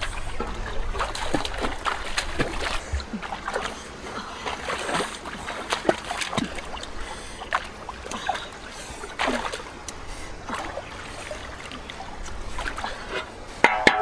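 Water splashing and sloshing at a river, broken by many small irregular knocks and clicks.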